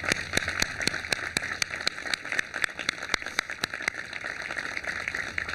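A crowd applauding, with a number of single sharp claps standing out above the rest.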